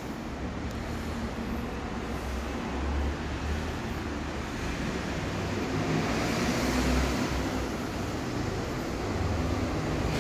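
Steady street traffic noise, a wash of passing cars with a low rumble that rises and falls, swelling a little about six seconds in.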